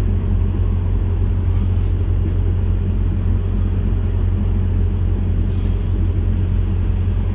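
Steady low rumble of an idling heavy diesel truck engine.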